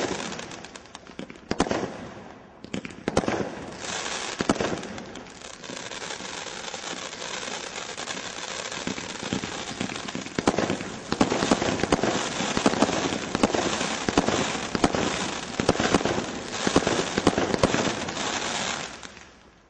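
Vendetta Cat 3 combination Roman candle by Brothers Pyrotechnics firing. A few sharp shot-and-burst reports come in the first seconds, then a continuous hissing crackle sets in. The crackle grows louder and denser from about ten seconds in, in repeated swells, and dies away sharply at the very end as the cake finishes.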